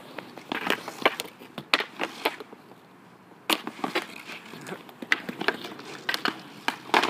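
Roller hockey on an asphalt driveway: scattered sharp clacks and taps of sticks, a street hockey ball and goalie gear, with inline skate wheels rolling on the pavement. The knocks come in clusters with a short lull about halfway through.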